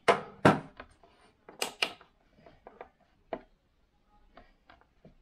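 Handling knocks and clicks as a plastic digital kitchen scale is pushed into place on a wooden tabletop and a steel revolver is shifted in the hand. Two sharp knocks in the first half second, then scattered lighter clicks.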